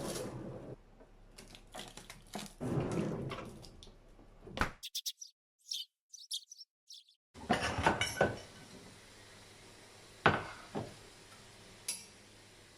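Dishes and kitchen utensils being handled: irregular clinks and clatter, then a few sharp knocks near the end. A short gap in the middle holds only a few high chirps.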